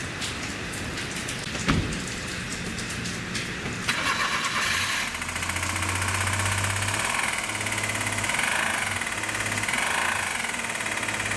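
The Suzuki Carry's three-cylinder engine is cranked and catches about four seconds in, then idles. It has the clattering knock of internal damage, which the mechanic thinks is likely a failed crankshaft bearing or tappets hitting in the cylinder head. Before it starts there is a steady hiss and a single thump.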